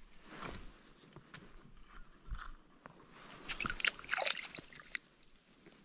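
Water sloshing and splashing in a slush-filled ice-fishing hole as a crappie is pulled up through it. The splashing is busiest about three and a half to four and a half seconds in, among scattered light clicks.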